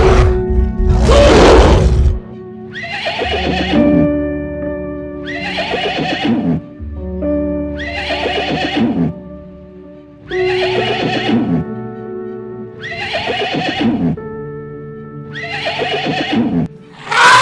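A horse whinnying over steady background music, six times in a row about every two and a half seconds, each call falling in pitch. A loud noisy burst comes about a second in.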